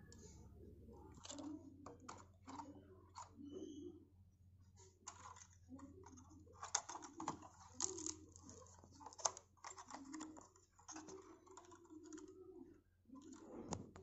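Faint, irregular clicks and rustles of hands handling the parts of an opened Roland Juno-Di keyboard, such as its flat ribbon cable and plastic chassis.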